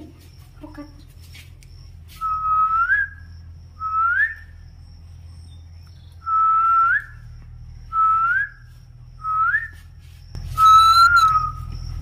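A short whistle repeated six times, about every second and a half. Each one holds a steady pitch and then flicks upward at the end, and the last is the loudest.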